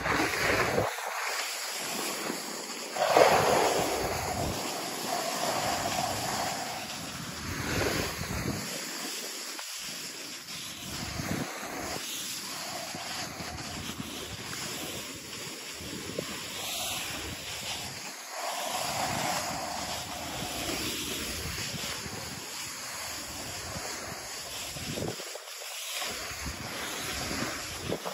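Wind rushing over the microphone of someone riding down a groomed ski run, over the hiss and scrape of sliding on packed snow. It swells and eases again and again, loudest about three seconds in.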